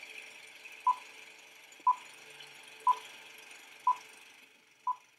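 Film-leader countdown beeps: five short beeps of one pitch, one each second, the last one fainter, over a faint hiss.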